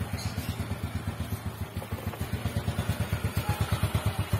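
Yamaha Mio scooter's single-cylinder four-stroke engine idling with a quick, even exhaust pulse, running smoothly on freshly changed engine oil.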